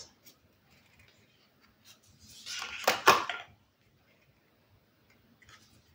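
Tarot cards sliding against each other as one is pushed off the deck and flipped: a papery rustle ending in two sharp card snaps about three seconds in.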